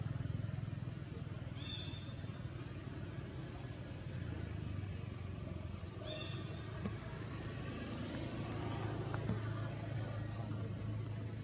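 Steady low engine hum, like a motor vehicle running, with two brief high-pitched calls about two and six seconds in.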